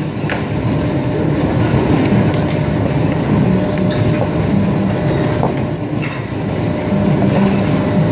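Loud steady machinery hum and rumble filling the cutting room, with a few short sharp clicks of a boning knife working on lamb against bone and board.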